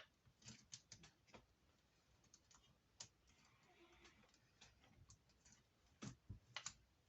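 Faint, scattered clicks and taps of fingers and nails on plastic as a laptop battery is worked loose by hand, with two louder clicks about six seconds in.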